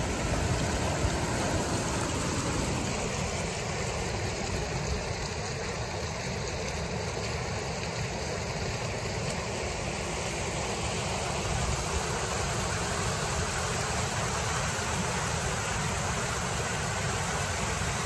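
Creek water running fast over rocks and small cascades: a steady, even rushing noise that does not change.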